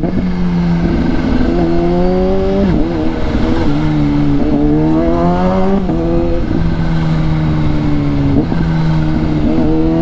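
Kawasaki Z H2's supercharged inline-four running through a Villain aftermarket exhaust while riding. The engine note rises twice, dropping at each upshift about three and six seconds in, then runs steadier at lower revs.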